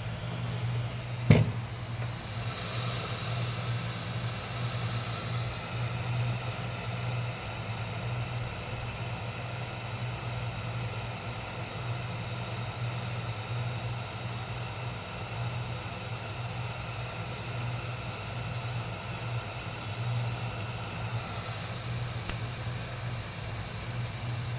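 Hot air blower running steadily with a low hum and a whine, heating the touch bar to loosen its adhesive; a single sharp click about a second in.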